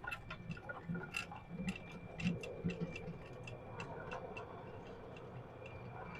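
A rapid run of light clicks or ticks, several a second, thinning out after about four seconds, over a faint steady hum.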